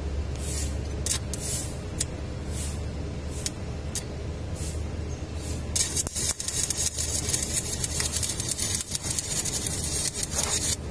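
Stick-welding arc crackling and sizzling steadily, starting about six seconds in, as a weld is laid over a crack in a forklift's hydraulic tilt cylinder mount. A steady low hum runs underneath, with a few short crackles before the arc settles.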